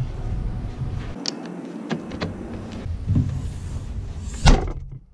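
Clicks and knocks from handling a Datsun 280Z's rear hatch and body, with one heavy thump about four and a half seconds in.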